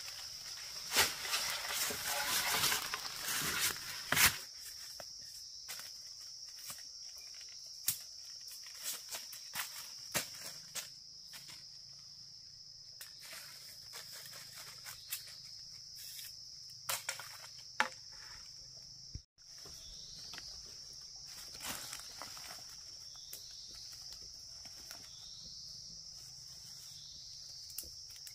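Steady high-pitched insect chorus with scattered sharp clicks, knocks and rustling from handling, busiest in the first four seconds. In the second half, short falling chirps repeat over the chorus.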